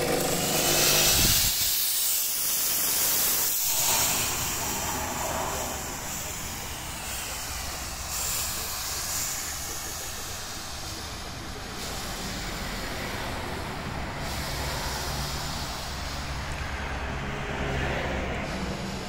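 A six-outlet LED Lord Fog 6 fog machine jetting out fog with a steady hiss over a low hum. It is loudest in the first few seconds, then settles to an even, lower hiss.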